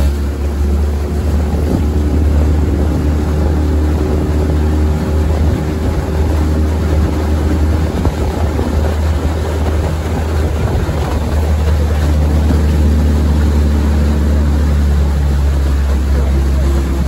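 Outboard motor of a coaching launch running steadily underway, a deep, even drone with a fainter hum above it.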